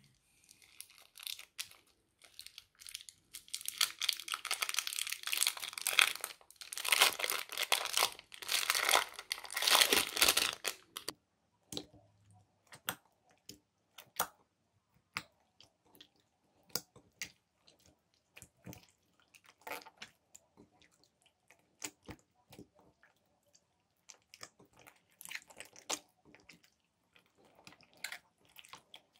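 Slime with foam beads being squished and kneaded by hand: a dense stretch of crackling and crinkling for the first ten seconds or so, then scattered sticky pops and clicks.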